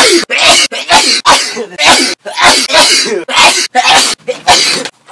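A rapid series of loud human sneezes, about two a second.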